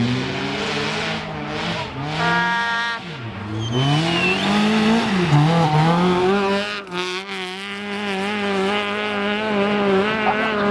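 Peugeot 206 rally car's engine revving hard on loose dirt, its pitch climbing and dropping over and over as the driver shifts and lifts, then held high. A brief high squeal cuts in about four seconds in.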